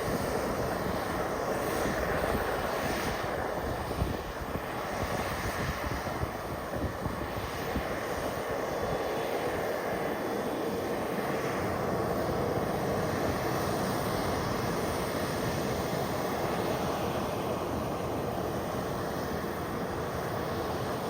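Steady rushing jet noise heard from an airport ramp, an even whoosh without clear pitch that holds level throughout.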